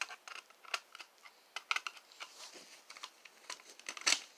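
Scattered small plastic clicks and rustles as an Edwards Genesis remote horn is handled and its cover taken off, with a sharper click near the end.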